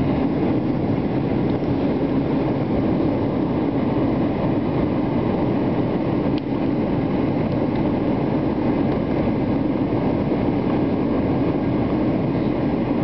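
Steady cabin noise of a Boeing 757 on approach: engine and airflow rumble, heard inside the cabin at a window seat over the wing.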